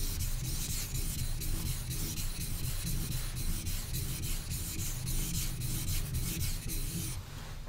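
A kiridashi blade being stroked back and forth on a wet Naniwa Chosera 1000 water stone, a quick run of wet scraping strokes raising slurry, stopping suddenly near the end.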